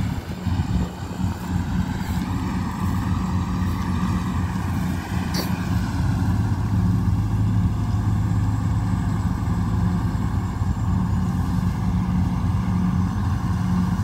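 Kubota DC-95 combine harvester's diesel engine running steadily as it cuts rice, with a continuous low hum that grows a little louder after a few seconds as the machine comes closer.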